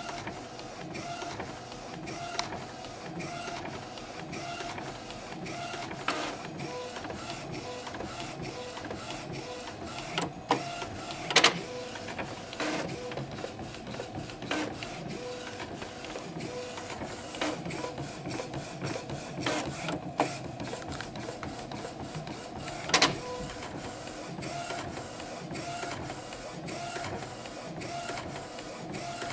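Epson Stylus Photo R270 inkjet printer running its calibration cycle: the print-head carriage and feed motors whir steadily in a repeating pattern, broken by sharp knocks several times, the loudest about eleven and a half seconds in. A characteristic knock during calibration is the fault the owner reports, with prints then shifting to the left.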